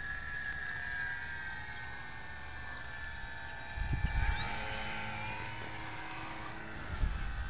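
Two FMS PT-17 Stearman RC biplanes' electric motors and propellers whining as they fly overhead, their pitch gliding up and down as the planes manoeuvre. Two short low rumbles come about four seconds in and again near the end.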